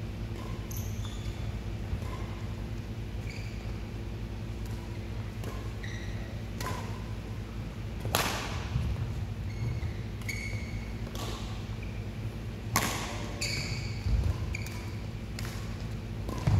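Badminton rally: rackets strike the shuttlecock in sharp cracks, the loudest about halfway through and again about three quarters of the way in, amid short squeaks of court shoes on the mat. A steady low hum fills the hall behind.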